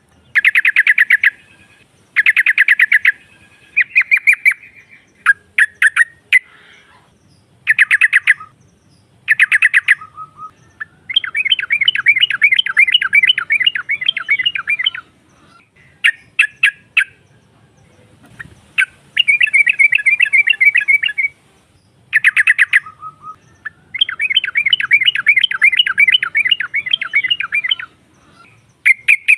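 Female yellow-vented bulbul (trucukan) calling, the kind of call used to lure rival birds in. It gives short bursts of rapid chattering notes, then longer fast chattering trills lasting several seconds each, repeated with short gaps.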